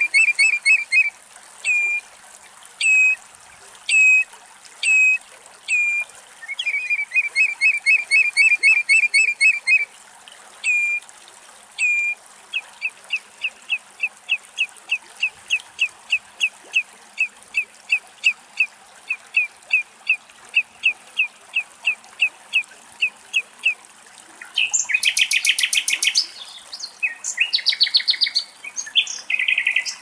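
Common redshank calling: fast runs of piping notes and single down-slurred whistles, then a long even series of about three notes a second. A louder, rapid burst of calls comes near the end.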